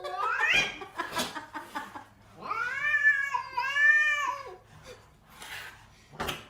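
A cat yowling: a call rising in pitch at the start, then two long, drawn-out, wavering meows about halfway through, with a few short knocks in between.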